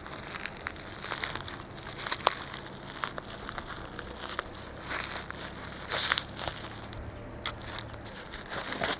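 Plastic packaging crinkling and crackling in irregular bursts as it is handled and pulled off a small part by hand.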